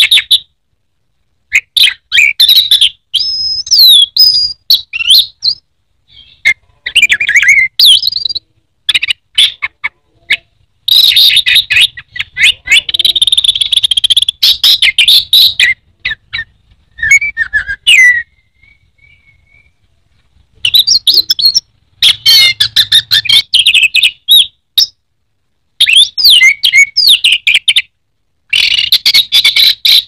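Orange-headed thrush (anis merah) singing: runs of quick, varied whistled notes lasting a few seconds each, broken by short pauses. It is singing in the entranced, head-down 'teler' manner that keepers prize.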